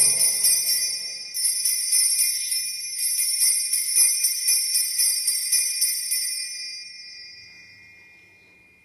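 Altar bells (a cluster of small sanctus bells) rung at the elevation of the consecrated host. There is one bright jingling stroke at the start and another about a second and a half in. Then comes a run of quick shakes, about four a second, and the ringing dies away over the last few seconds.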